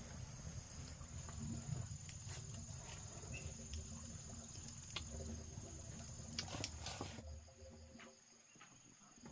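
Insects chirring steadily in a high thin tone over a faint low rumble, with a few light clicks; the insect sound cuts off suddenly about seven seconds in.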